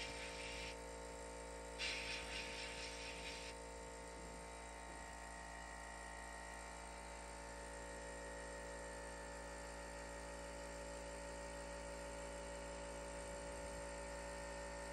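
Sandblasting cabinet's blast gun hissing in two short bursts, the first stopping just under a second in and the second from about two to three and a half seconds, over a steady machine hum. The blast is stripping old paint off a toy locomotive's body shell.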